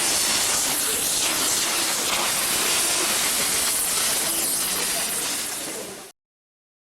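Steady loud rushing noise of an outdoor festival gathering, with faint voices in it, that fades and then cuts off to silence about six seconds in.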